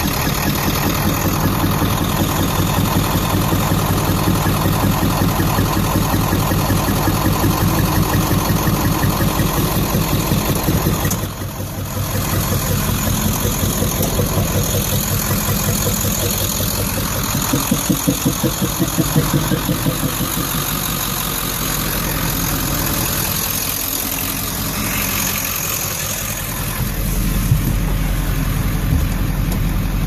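1995 7.3-litre turbodiesel V8 running steadily with an even pulse, and one brief sudden drop in the sound about eleven seconds in. The engine has an intermittent cough or hiccup.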